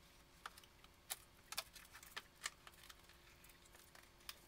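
Faint, scattered clicks and light rustles of a cardboard product box being handled and opened, about half a dozen small sounds over low room tone.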